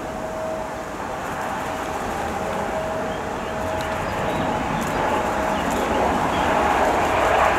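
Turbofan jet engines of an Embraer E190-E2 rolling along the runway: a steady rumbling rush with a thin whine that drops out about halfway through, growing louder toward the end.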